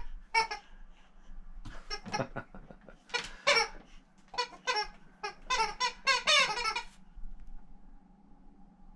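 Dog's squeaky toy squeaking in quick runs as a boxer chews it in his mouth, about five bursts of rapid wavering squeaks over the first seven seconds, then it stops.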